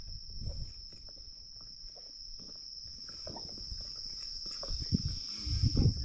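Crickets chirring in a steady, unbroken high-pitched drone, with a few low thumps of handling or footsteps near the end.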